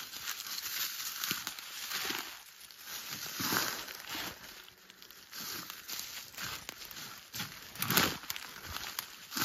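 Footsteps crunching through dry forest leaf litter and brushing through low plants: irregular crackling crunches a second or two apart, the loudest near the end.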